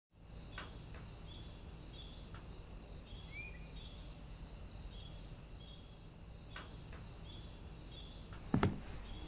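Faint bush ambience: insects chirping steadily, a pulse about twice a second over a continuous high trill, with a single short bird call about three seconds in. Near the end, one thud of a shoe landing on a metal mesh walkway.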